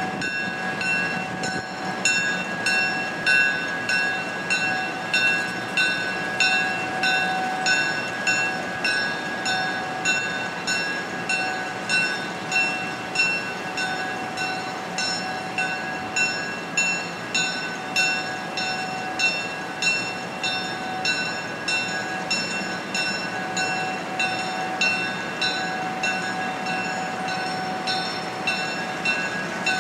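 A switcher locomotive's bell ringing steadily, about one and a half strokes a second, over the low running of its diesel engine as it pulls passenger cars slowly.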